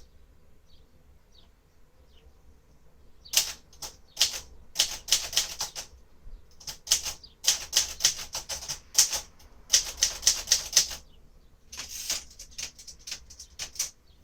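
Clatter of a 1957 Royal Aristocrat manual typewriter: after about three quiet seconds, quick runs of sharp mechanical clicks from its keys and carriage, in bursts with brief pauses.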